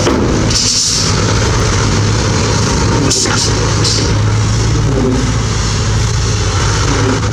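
Bulldozer's diesel engine running steadily under load, with a few brief high-pitched hissing or squealing noises about half a second in and again around three seconds in.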